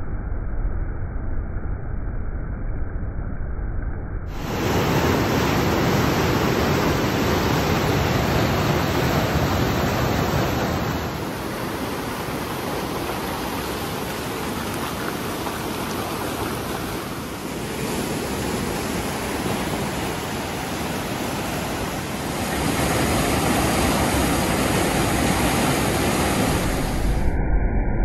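Fast river water rushing over rock ledges and down a waterfall cascade: a steady, loud noise that swells and eases a few times.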